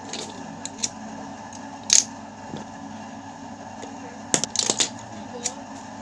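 Scattered sharp clicks and taps of small tools and wire being handled on a tiled floor, the loudest about two seconds in and a quick cluster of them near the end, over a steady low background hum.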